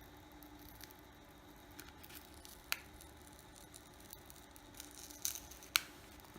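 Faint sharp clicks and snaps of a phone's plastic back cover being pried off, its clips releasing one by one against adhesive, over a low steady hum.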